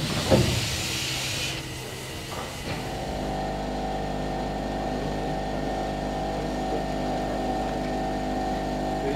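A burst of steam hissing with a sharp thump about half a second in, then the steady mechanical hum of a standing DR class 03 steam locomotive in steam.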